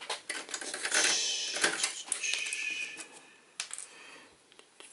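Very sticky scribing tape being peeled from its roll and handled between the fingers: a noisy, crackling rip for about two seconds, with scattered clicks before and after.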